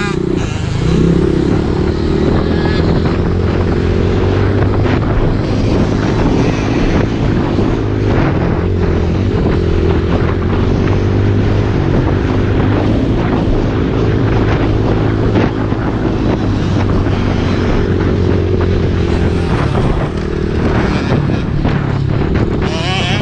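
Dirt bike engine running on the move, heard from on board, its revs rising and falling slightly, with frequent short knocks and rattles as the bike goes over the rough, rutted track.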